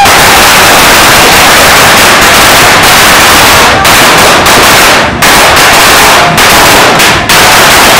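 A string of firecrackers going off in a rapid, continuous volley, very loud, with a few brief breaks.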